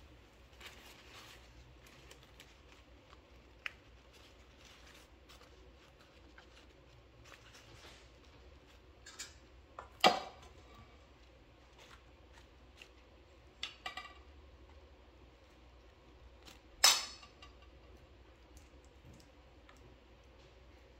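Bamboo leaves rustling faintly as they are folded into a cone for a rice dumpling, with a few sharp clinks of a spoon against a bowl, the two loudest about ten seconds in and near the end.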